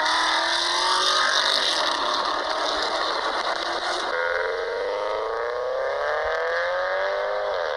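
Recorded car engine and exhaust sound clips played back as quiz questions. The first engine rises in pitch and then holds steady. About four seconds in, it changes to a different engine that climbs slowly in revs and drops away just before the end.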